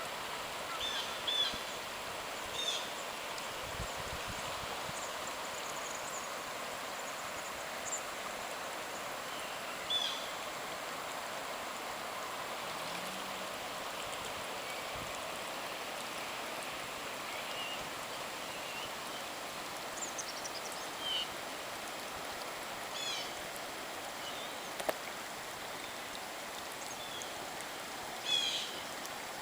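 Floodwater rushing steadily, with short high chirps heard now and then over it.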